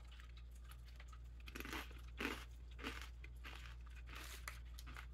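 A person chewing crunchy conch-shaped Korean corn snacks coated in peanut butter: faint, separate crisp crunches spread over a few seconds.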